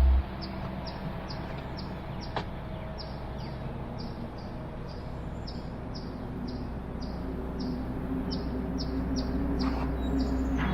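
A bird calling over and over, a short high chirp falling in pitch about three times a second, over a low steady rumble. A loud low hum cuts off just after the start.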